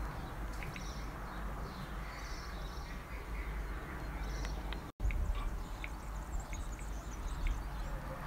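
Outdoor ambience with scattered short bird calls and small clicks over a low steady rumble, which cuts out for an instant about five seconds in.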